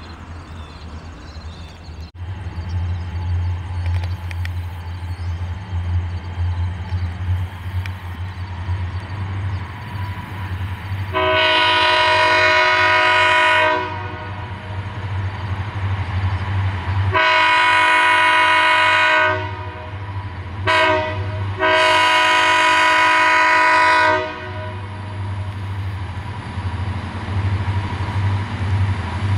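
Freight train's EMD diesel locomotives passing with a steady low engine drone, and a multi-chime locomotive horn sounding two long blasts, a short one and a final long one: the standard grade-crossing signal.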